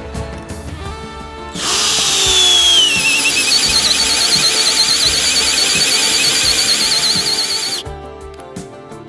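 Favourite DC 1802 cordless drill/driver running for about six seconds, starting about one and a half seconds in and stopping abruptly. Its high motor whine drops in pitch at first, then holds steady with a wavering edge. Background music plays throughout.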